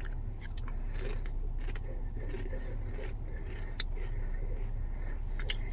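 Quiet chewing of Pringles potato crisps: a few short crunches and clicks over a steady low rumble.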